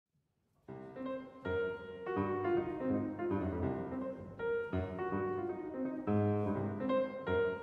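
After a moment of silence, piano music begins about a second in, with chords over a low bass line.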